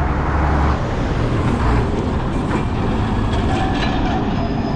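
Busy road traffic: motor vehicles passing close by, with a heavy deep rumble from a large vehicle in the first second.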